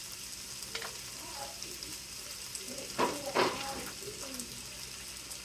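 Fried rice sizzling in a hot electric skillet, a steady hiss, with two short louder knocks about three seconds in.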